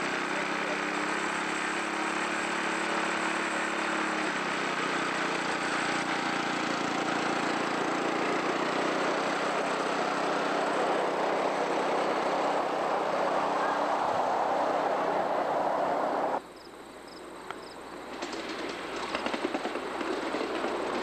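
Ride-on miniature train running on its track: a steady low motor hum at first, then a building rush of noise as it moves along. The sound drops off suddenly about sixteen seconds in and builds again as another miniature train approaches, with a rattle of wheels on the rails near the end.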